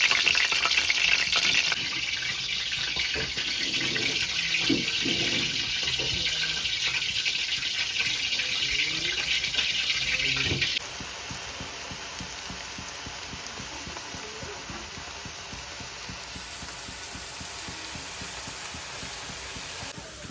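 Water running from a kitchen tap, with a few knocks and clatters of things under the stream, then shut off suddenly about halfway through; a quieter steady hiss carries on afterwards.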